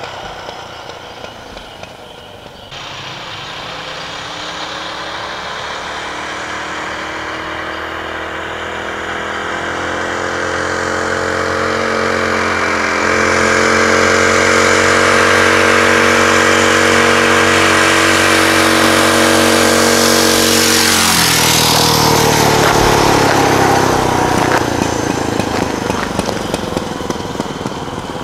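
A mini bike's small single-cylinder engine running at full throttle on a top-speed run. It grows steadily louder as the bike approaches, drops sharply in pitch as it passes about three quarters of the way through, then fades away.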